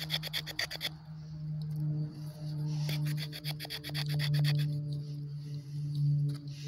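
Knife blade scraping along a dry wooden stick to shave off fine tinder: a run of rapid, even rasping strokes that stops about a second in, then slower, fainter scrapes. A steady low hum runs underneath.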